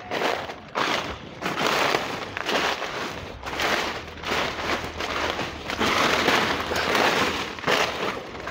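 Footsteps crunching through dry fallen leaf litter at an even walking pace, one crackling step roughly every two-thirds of a second.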